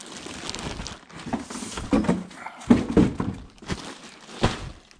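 Plastic wrapping around a saddlebag rustling and crinkling as the bag is handled, with a few dull thumps about two to three seconds in and another near the end.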